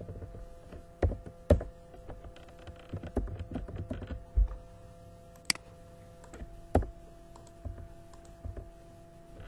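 Computer keyboard keystrokes and clicks at an irregular pace, with a few louder taps standing out: about a second and a half in, and again near five and a half and seven seconds.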